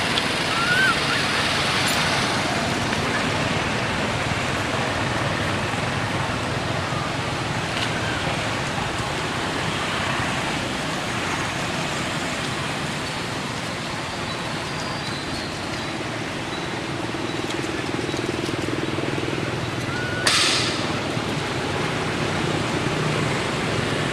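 Steady outdoor background noise, with a few faint short rising squeaks and one brief loud hissing burst about twenty seconds in.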